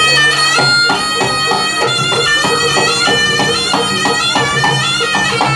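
Javanese jaranan music: a shrill, reedy slompret (double-reed shawm) playing a wavering melody over steady drumbeats.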